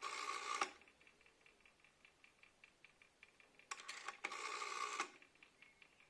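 Rotary telephone dial turned and let go twice: each time a loud rasp of about a second, then a run of fainter, evenly spaced ticks as the dial returns.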